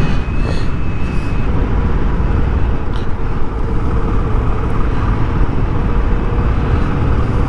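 Heavy wind noise on an action camera's microphone, whose wind filter has come off, over a moving motorcycle: a steady low rumble and buffeting.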